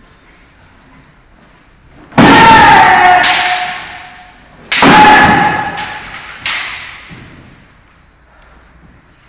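Kendo sparring: three loud sudden hits, about two seconds in, near the middle and a second and a half later, each carrying a drawn-out kiai shout that slides slightly down in pitch. The first two shouts are long, the third short.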